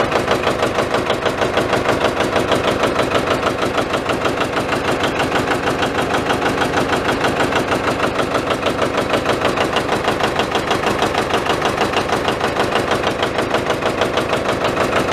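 John Deere 80's two-cylinder diesel engine idling steadily, each firing stroke a distinct, evenly spaced beat.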